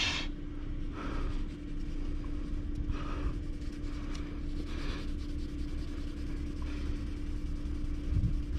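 Sponge applicator rubbing liquid polishing compound onto a painted car door sill to polish out a light scratch, a few soft swishes. A steady low hum and rumble runs underneath.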